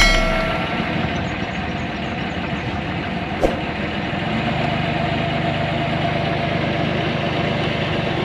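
A boat's engine running steadily, with a deeper, even hum coming in about halfway through and a single sharp click about three and a half seconds in.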